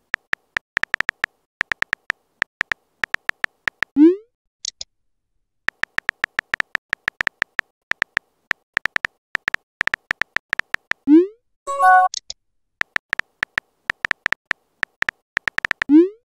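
Phone keyboard typing clicks in quick runs, each run ended by a short rising swoosh as the message is sent, three times: about 4, 11 and 16 seconds in. A short high blip follows the first send, and a brief chime follows the second.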